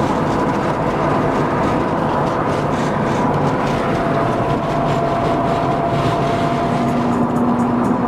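Steady road and engine noise inside a car driving at speed on a highway.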